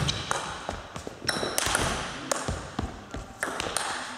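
Table tennis ball clicking sharply off bats, the table and the floor: a handful of irregularly spaced hits that echo in a sports hall.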